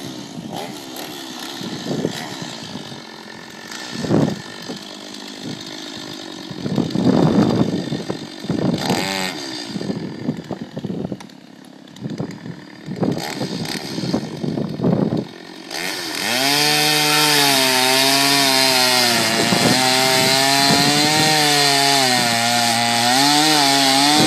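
Chainsaw revved in short, uneven bursts, then from about sixteen seconds in running at steady full throttle while cutting into a tree, its pitch sagging and recovering under load.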